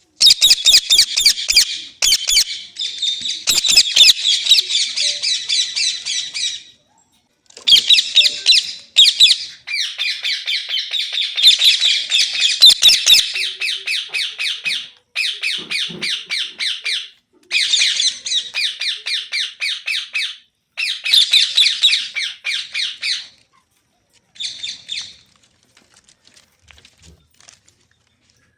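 Pet rose-ringed (Indian ringneck) parakeet screeching in rapid, repeated squawks, run together in long bursts of several seconds with short pauses between. The calling thins out and goes faint near the end.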